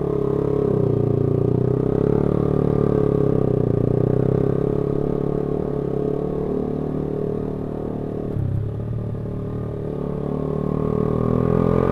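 Honda CB150R's 150 cc single-cylinder engine running under way, easing off about two-thirds of the way through and picking up again near the end.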